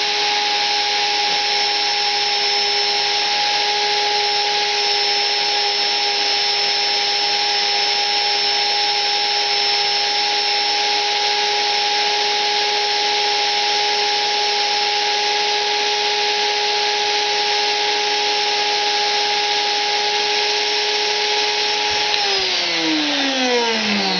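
High-speed rotary cutter on a rose engine ornamental-turning lathe running with a steady whine and hiss as it cuts a wooden rosette disc. Near the end its pitch falls as the motor spins down.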